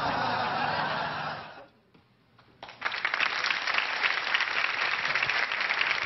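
The end of a film excerpt's soundtrack fades out into a moment of near silence. Then a studio audience breaks into steady applause, starting suddenly nearly three seconds in.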